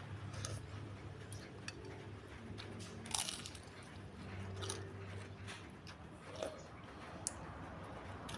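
Close-miked chewing and biting while eating small meatballs and spicy noodles: wet mouth clicks and crunchy bites, the loudest bite about three seconds in, over a low steady hum.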